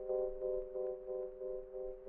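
Background music: sustained, ringing chords holding steady with a gentle pulse and slowly fading.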